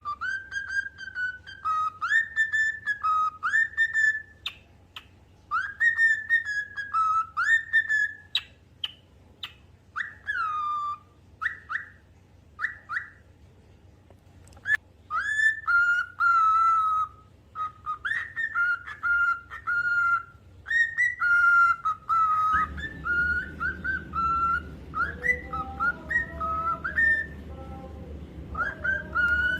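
Cockatiel whistling a learned tune: clear, repeated phrases of rising and slurred whistled notes with short pauses between them. About three-quarters of the way through, a steady low hum comes in behind it, and a fainter, lower whistled line joins.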